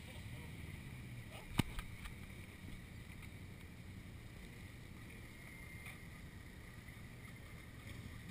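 Steady low rumble of wind on the microphone, with one sharp click about a second and a half in.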